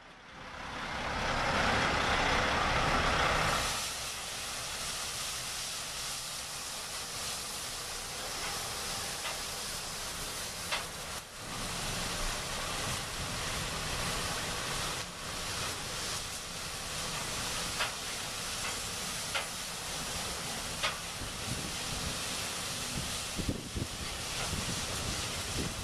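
Pressurised water jets of a drive-through truck wheel wash spraying the wheels and underside of a passing truck: a steady hiss of spray, with the truck's engine running low underneath and occasional sharp clicks. The noise is louder for the first three or four seconds, then settles.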